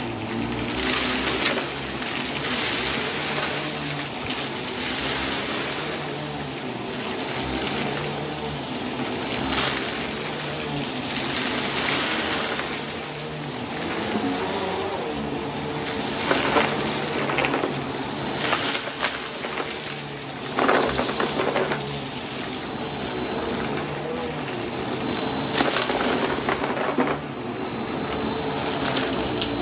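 Vacuum cleaner running steadily with a thin high motor whine, broken every few seconds by louder crunching, rattling bursts as it sucks up dry debris.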